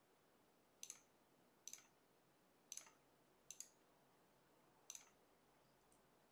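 Faint computer mouse clicks, five of them spread over a few seconds, each a quick press-and-release double tick.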